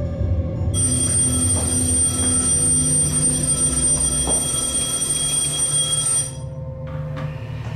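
Bedside alarm clock ringing continuously with a high, steady ring, starting about a second in and cut off suddenly a little over six seconds in as it is switched off.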